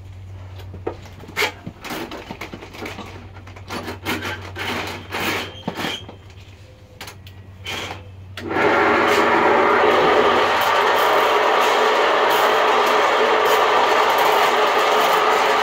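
Scattered clicks and knocks of cable and tools being handled, then, about halfway through, a Ridgid K-60 sectional sewer machine is switched on and runs steadily, spinning its 7/8-inch cable.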